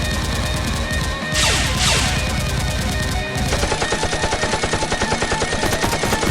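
Rapid automatic gunfire, like a machine gun firing in long bursts, with a falling whoosh about a second and a half in. From about three and a half seconds in the shots come at a steady rate of about ten a second. Background music runs underneath.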